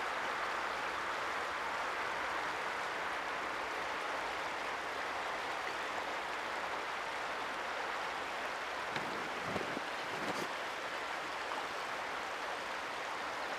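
Steady outdoor rushing noise with no clear rhythm, with a few faint knocks about nine to ten and a half seconds in.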